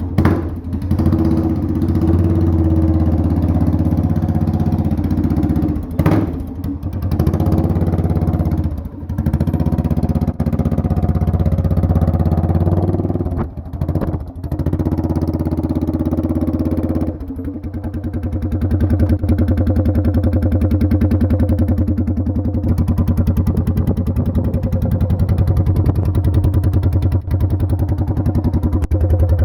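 A 550 quad's engine running with its muffler removed, loud and unmuffled. Through the first half it revs and eases off, dipping briefly several times. About halfway through it settles into a steady, evenly pulsing run.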